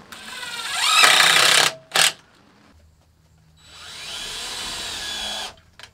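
Cordless drill driving screws into a wooden frame: one run that speeds up and climbs in pitch, cutting off after about a second and a half, a short blip, then after a pause a second, steadier run lasting about two seconds.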